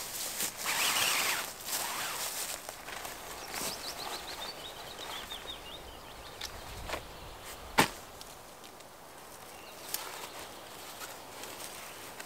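Nylon hammock fabric and its sleeve rustling and swishing as the hammock is bundled and stuffed into a bag, with one sharp click a little past the middle. A bird trills briefly and faintly about four seconds in.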